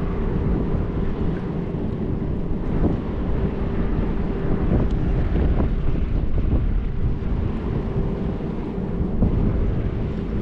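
Strong wind buffeting the microphone, a dense low rumble with no letup, over a faint steady hum.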